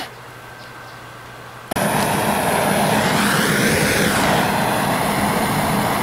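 A propane torch running with a steady, loud hiss that starts abruptly a little under two seconds in, used to relight the wood gas at the gasifier's outlet. Before it there is only faint background.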